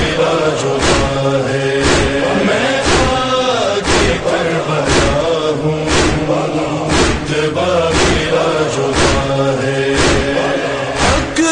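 Male voices chanting a noha, a Shia Muharram lament in Urdu, over sharp, even beats about once a second.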